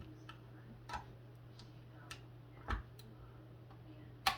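Irregular sharp plastic clicks as a flathead screwdriver is twisted in the seam of a Ryobi battery's plastic case, prying the two halves apart, with the loudest click near the end. A steady low hum runs underneath.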